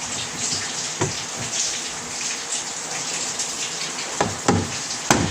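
Water running steadily, with a few sharp knocks about a second in and several more near the end.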